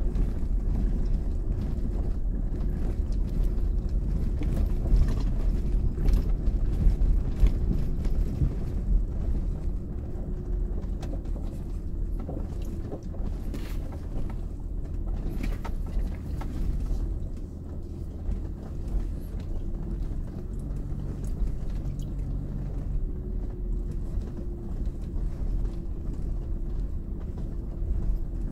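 Kia Mohave SUV driving slowly over a rough dirt trail, heard from inside the cabin. The engine and tyres make a steady low rumble, with scattered knocks and rattles from the body and suspension over the bumps, most of them in the first half.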